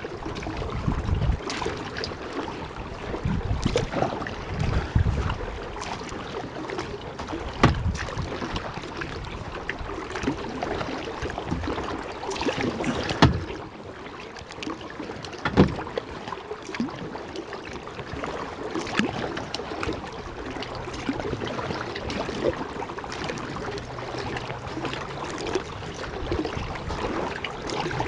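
Kayak paddle strokes splashing and dripping on the water, with wind buffeting the microphone in the first few seconds and a few sharp knocks later on.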